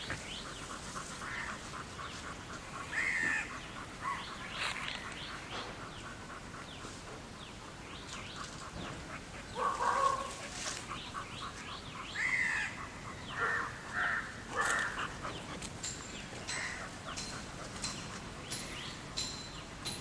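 Birds calling outdoors: a scatter of short calls over a quiet background, with a run of three calls in quick succession a little past the middle.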